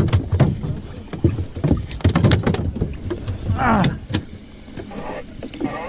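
Irregular knocks and bumps of fishing gear being handled on a fiberglass boat deck, with a short falling whine about three and a half seconds in.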